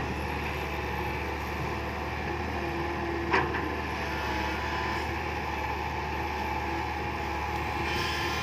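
Komatsu PC120-5 hydraulic excavator running steadily as it works, loading soil, with one sharp metallic clank about three and a half seconds in.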